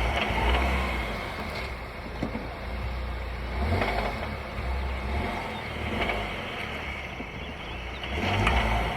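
VW Tiguan's engine and drivetrain running with a low rumble that swells and eases several times, as the load on the drivetrain changes. The owner is chasing a load-change rattle that he suspects comes from the dual-mass flywheel or the gearbox.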